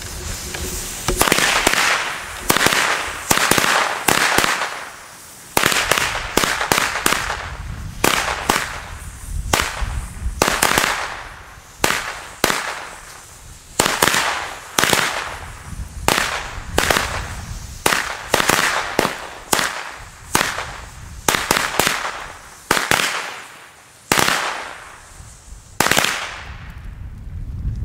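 Broekhoff Centipede firecracker chain going off: a hissing fuse, then from about a second in a long irregular run of sharp bangs, roughly one or two a second, each followed by a short hiss, the last bang shortly before the end.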